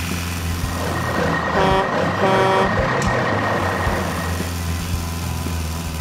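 Truck engine sound running steadily, with two short horn toots about two seconds in.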